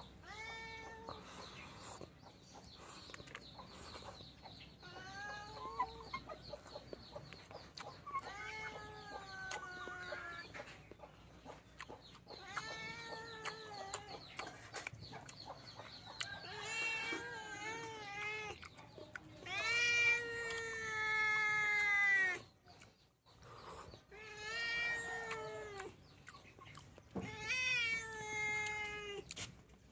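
An animal calling over and over: about nine drawn-out, wavering cries, the longest and loudest about two-thirds of the way through. A faint steady high whine runs under the first half.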